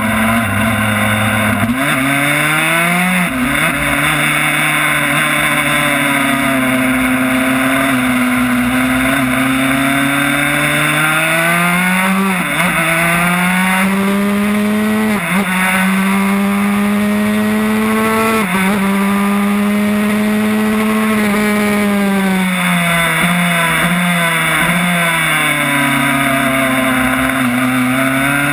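Yamaha YZ85 two-stroke single-cylinder engine in a Honda RS125 race bike, revving up hard through the gears with a sharp drop in pitch at each upshift, then falling in pitch with a few small dips as it slows, and climbing again near the end. Wind rush over the fairing throughout.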